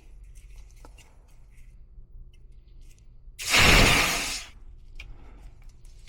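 A single hissing blast of compressed gas, about a second long, forced into a clogged air-conditioner condensate drain line to clear the blockage.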